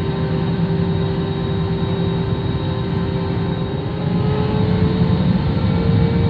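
Airliner jet engines and airframe noise heard from inside the cabin: a steady rumble and hiss with a hum that rises slightly in pitch and grows louder about four seconds in, as the plane gathers speed on the ground for takeoff.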